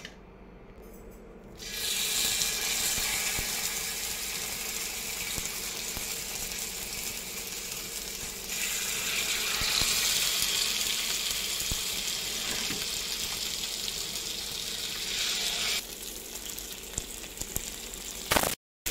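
Marinated rupchanda fish steaks sizzling in hot oil on a flat tawa. The sizzle starts suddenly about one and a half seconds in as the first pieces hit the pan, and grows louder through the middle as more fish is laid in before settling back down near the end.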